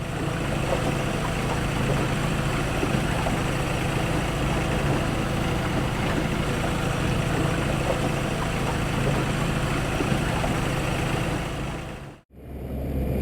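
Boat motor running steadily, a low drone under a broad hiss. Near the end the sound cuts off abruptly and a deeper engine hum takes over.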